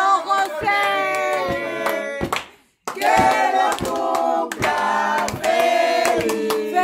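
A group of adults and children singing a birthday song together in Spanish, with hand claps. The singing breaks off briefly about two and a half seconds in, then carries on.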